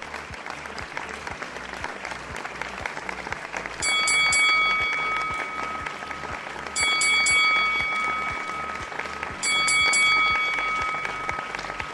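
Applause from the participants of a video call, with an exchange's market-opening bell rung three times, about three seconds apart, starting about four seconds in.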